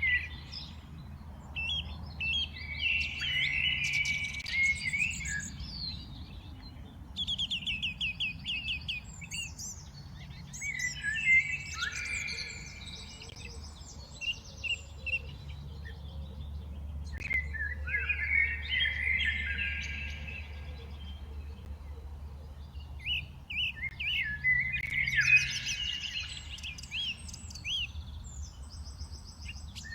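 Several songbirds singing and chirping in bursts every few seconds, mixing quick chirps, fast trills and short sweeping notes.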